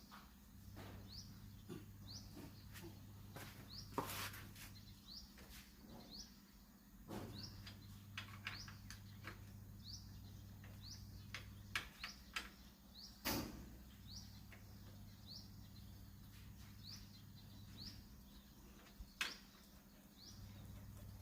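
Faint, short rising bird chirps repeating about once a second, with scattered clicks and knocks and a low hum that comes and goes every few seconds.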